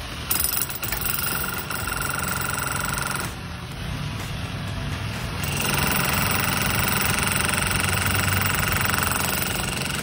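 Corded electric demolition hammer chiselling into a concrete slab, hammering in two runs: the first from just after the start to about three seconds in, then after a quieter let-up a louder, longer run from about five and a half seconds on.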